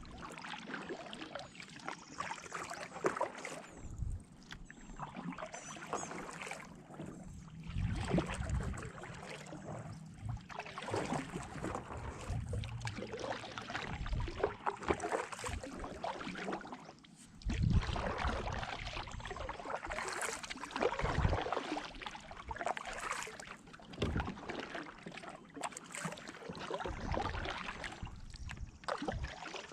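Sit-on-top kayak being paddled: paddle blades dipping and splashing in the water in an uneven rhythm, with occasional low thumps.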